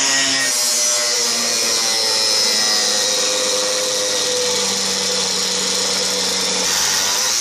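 Angle grinder running steadily with its disc grinding body filler (Bondo) and paint off the steel body of a VW bus: a continuous motor whine over a gritty grinding hiss.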